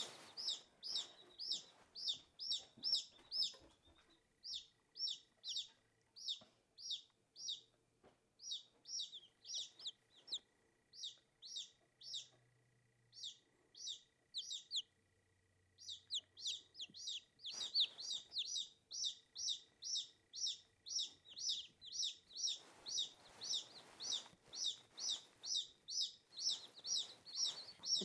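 Newly hatched Silkie chicks peeping: a steady run of short, high peeps, about three a second, with a brief lull near the middle.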